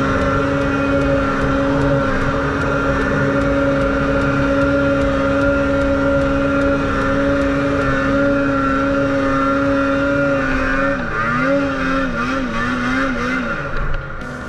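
Snowmobile engine running at a steady pitch under load. About eleven seconds in the pitch wavers up and down several times as the throttle is worked, and the sound drops near the end.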